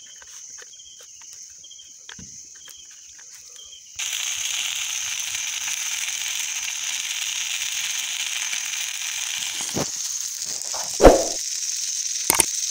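Faint rhythmic chirping of night insects, then fish frying in oil in a pan, a loud steady sizzle, cuts in about four seconds in. Under the sizzle a sharp knock comes about a second and a half before the end, and two short clicks follow near the end.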